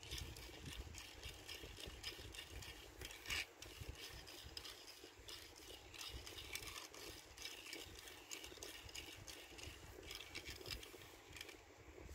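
Tomica die-cast minicar rolled back and forth by hand on a cloth, its small wheels and body giving faint, irregular rattling and clicking, with one louder click about three seconds in.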